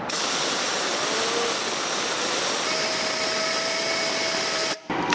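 Compressed air hissing steadily from a blower nozzle aimed into the turbocharger of a BMW 525d's twin-turbo N47 diesel, spinning the turbo wheel; a faint steady whine from the spinning turbo comes in about halfway, and the air cuts off abruptly near the end. The turbo spins without any abnormal noise, a sign that it is not the source of the whistle being chased.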